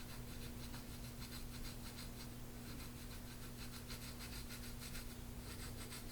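Soft-tissue massage on bare skin: faint, quick rubbing strokes repeating several times a second, over a steady low hum.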